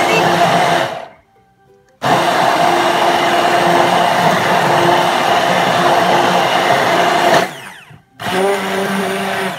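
Electric stick blender running in a beaker of chocolate ice cream and milk, blending a milkshake. Its motor stops for about a second near the start, runs steadily again, then winds down briefly near the end before starting once more.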